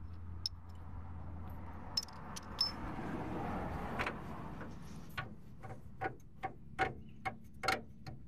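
Handling and rubbing noise, then a run of about seven light metallic clicks, a little over two a second, as hands work the lower bolt out of a pickup's rear shock mount.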